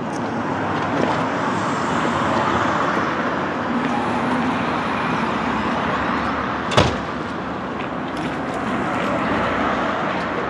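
City street ambience: a steady wash of traffic noise from passing cars, with one sharp bang about two-thirds of the way through.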